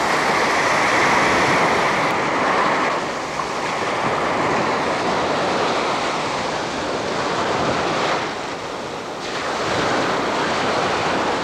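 A steady rushing noise that swells and eases, dipping briefly about eight seconds in.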